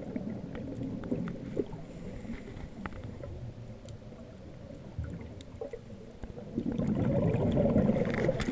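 Scuba diver's exhaled bubbles rumbling and gurgling past an underwater camera housing, dying away about two seconds in and swelling again with a fresh exhalation about six and a half seconds in, with scattered faint clicks in between.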